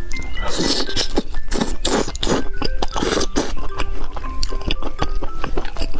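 Background music of short, bright melody notes, over crunchy bites and chewing of sauced meat and green pepper skewers.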